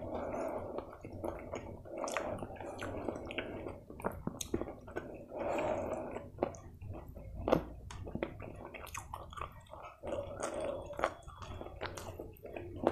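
Close-miked wet chewing and mouth sounds from eating chicken curry with rice by hand, mixed with the squelch of fingers working rice on a steel plate. Many short sharp clicks throughout, the loudest one a little past the middle.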